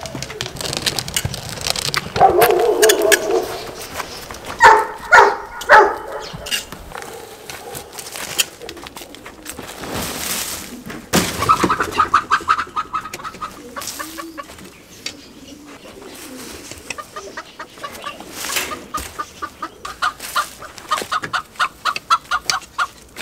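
Chickens clucking and calling in bursts, with runs of quick repeated calls, among a few dull knocks and rustles.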